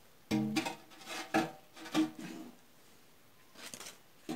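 A few plucked guitar notes of music, sharp attacks that ring briefly, within the first two and a half seconds, followed by a quieter stretch with a few light clicks.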